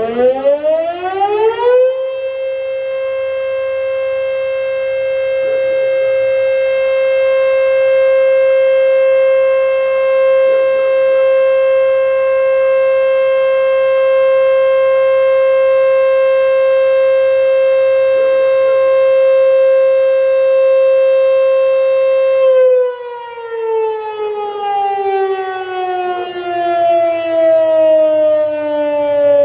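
ED Bullard 3H outdoor warning siren sounding a test. It finishes winding up in the first two seconds, holds one steady high tone for about twenty seconds, then is switched off and winds down, its pitch falling steadily, from about three quarters of the way through.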